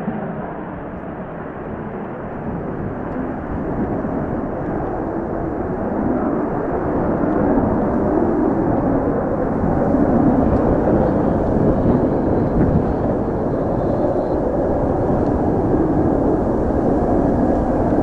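Jet noise of an F-2A fighter's F110 turbofan at full afterburner climbing away after takeoff, a continuous echoing rumble that swells about six seconds in and then holds steady. Wind buffets the microphone.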